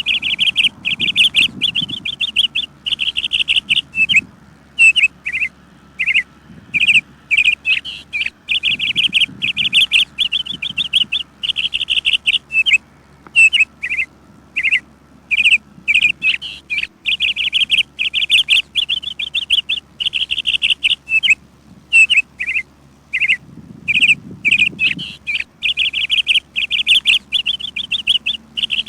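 Birds chirping: quick high chirps and short rattling trills, one after another with only brief gaps.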